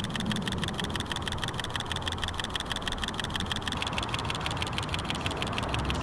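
Panasonic Lumix G70 shooting in its panorama mode while being swept sideways: a fast, even run of shutter clicks, about ten a second, over a low rumble.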